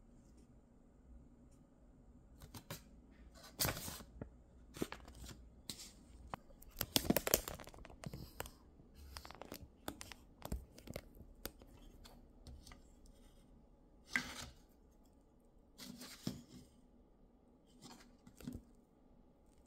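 Hands handling a paper checklist insert and hard plastic hexagonal toy capsules: irregular bursts of paper rustling and crinkling mixed with short clicks and taps of plastic being set down and touched.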